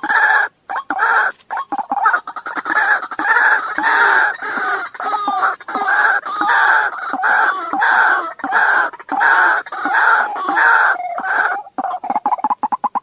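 White-breasted waterhen calling: a loud, harsh croaking call repeated about twice a second, breaking into shorter, quicker notes near the end.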